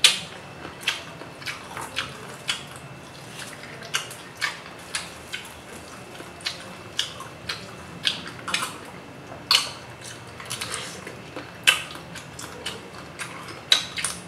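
Close-up eating sounds of shrimp being eaten by hand: irregular short smacks and clicks of chewing and sucking at the shell, roughly one a second.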